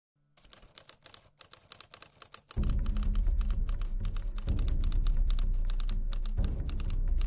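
Rapid key clicks of typing, keeping time with text being typed out. About two and a half seconds in, a loud low drone comes in underneath and carries on.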